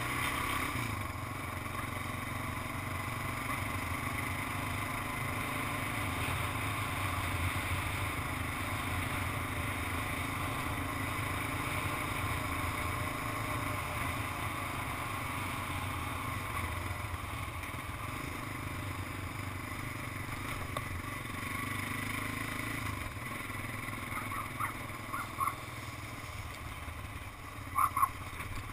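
Large Honda ATV's engine running steadily while riding. A few short high tones come near the end.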